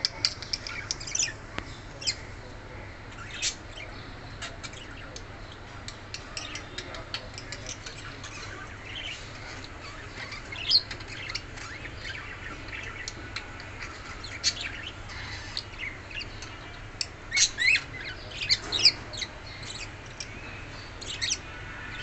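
Pair of budgerigars chirping and chattering: short, sharp chirps scattered throughout, coming in busier bursts about halfway through and again near the end.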